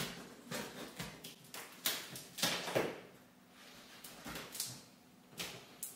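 A knife slitting the packing tape along the top seam of a large cardboard box, in a series of irregular short scrapes and rustles of tape and cardboard.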